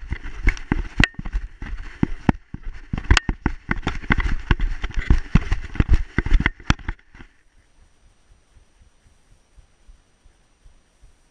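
Dog bounding through deep snow, heard from a camera strapped to its harness: a fast, uneven run of thumps from its strides with snow spraying, which stops about seven seconds in.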